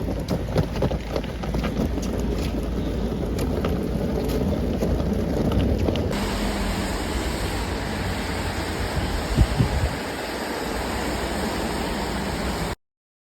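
Wind rumbling on the microphone with a steady outdoor rush. It turns brighter about six seconds in and cuts off abruptly near the end.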